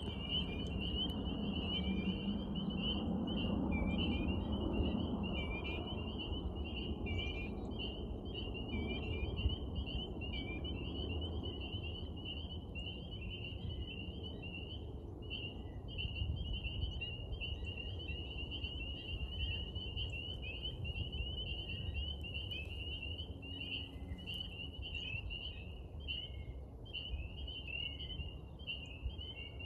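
Chorus of pond frogs calling continuously, many rapid high-pitched calls overlapping. A low background rumble is heavier in the first few seconds.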